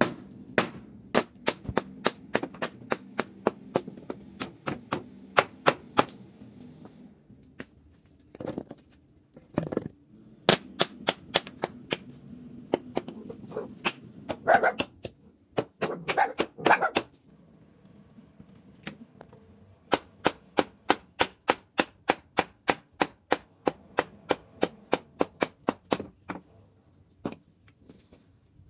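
Claw hammer striking a wooden pallet, knocking its boards and blocks apart: runs of sharp blows at about two to three a second, broken by short pauses.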